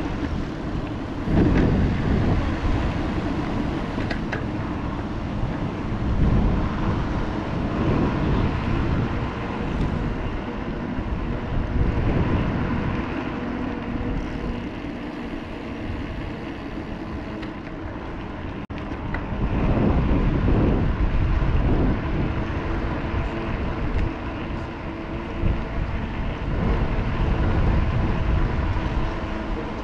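Wind buffeting the microphone on a moving bicycle, rumbling in gusts that rise and fall every few seconds, over a steady pitched hum.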